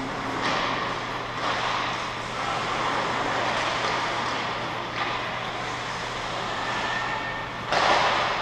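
Ice rink noise during a hockey game: a steady low hum under a hiss of skates on ice, with a louder scraping burst near the end.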